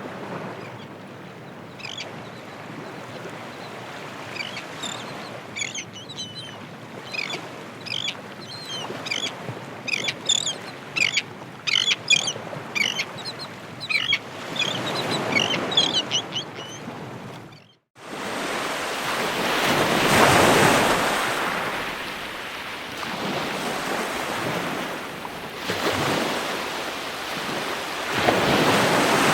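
Ocean surf washing in, with a flock of birds making many short, high calls over it. About eighteen seconds in the sound breaks off abruptly, and louder surf takes over, rising and falling as waves break in slow swells.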